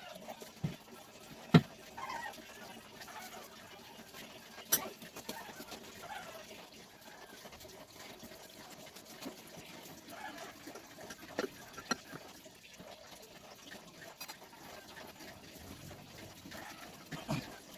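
Scattered knocks and clinks of metal transmission parts and tools being handled during an automatic transmission teardown, the loudest about one and a half seconds in, with a few more spread through.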